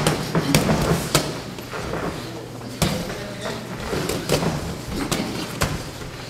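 Boxing sparring: irregular sharp thuds of gloved punches landing and feet moving on the ring canvas, roughly one every second, over a steady low hum.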